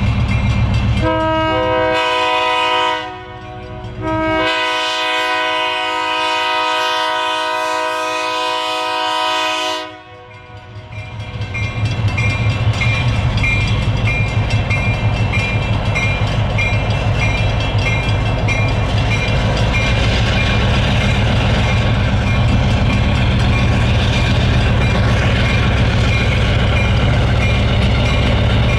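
Diesel locomotive air horn sounding a short blast and then a long blast of about five and a half seconds. The horn is followed by a passing train: the locomotive's diesel engine rumbling and wheels running on the rails, with a faint regular ringing, like a locomotive bell, in the second half.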